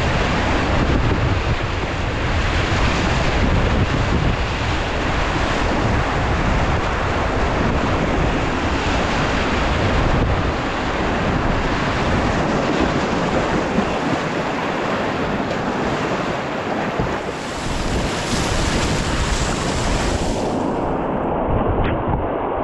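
Whitewater rapids rushing and splashing close around a kayak, with wind rumbling on the microphone. Near the end the hiss loses its top as the sound changes to another stretch of rapids.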